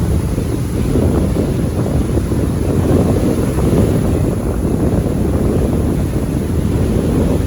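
Steady wind rumbling on a phone microphone, over the wash of sea surf.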